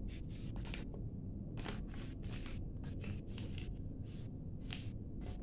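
Sheet of A4 paper rustling and crinkling as it is folded and creased by hand: a run of short, irregular crisp rustles.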